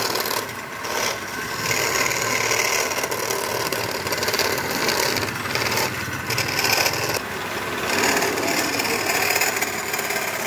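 A steel chisel scraping and cutting a wooden tray spinning on a lathe: a continuous rasping scrape that swells and eases as the tool works, over the running lathe.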